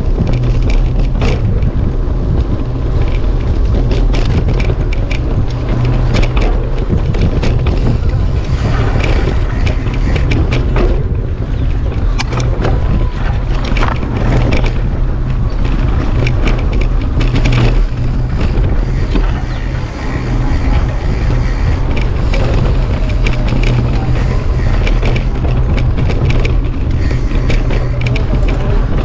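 Mountain bike ridden over a rough dirt track, heard from a bike-mounted camera: steady wind rumble on the microphone and tyre noise, with frequent knocks and rattles from bumps.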